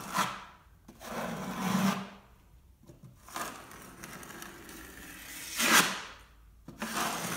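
A 12-inch steel taping knife scraping across a wall in several long strokes, the loudest near the end, as joint compound is skimmed on and wiped back off to smooth out a textured surface.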